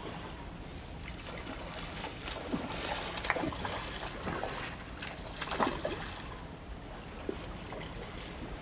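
Brooks River water rushing steadily, with a few louder splashes and sloshes in the middle.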